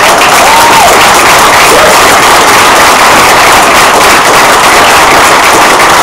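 Audience applause, breaking out all at once and holding steady.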